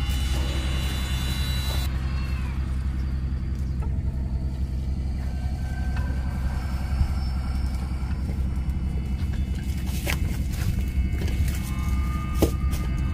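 A steady low rumble, with a couple of faint clicks near the end.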